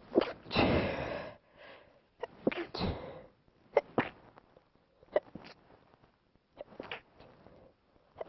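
A person sneezing: a loud sneeze about half a second in, then a second, shorter burst around two and a half seconds in.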